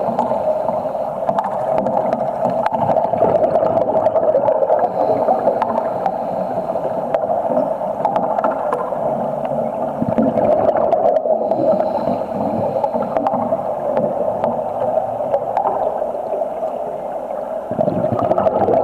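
Underwater cutting with a Broco exothermic cutting rod: a steady, churning, gurgling rush of bubbles with a strong midrange band. It briefly thins about eleven seconds in.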